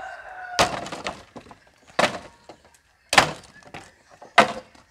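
Pieces of firewood knocking hard against wood, four sharp strikes about a second and a half apart, each with a short clattering tail.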